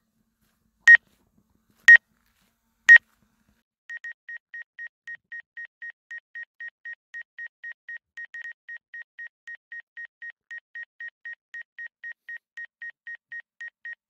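DJI Mavic Air 2 remote controller beeping as the drone lands: loud single high beeps about once a second, then from about four seconds in a quieter, faster run of about four beeps a second at the same pitch.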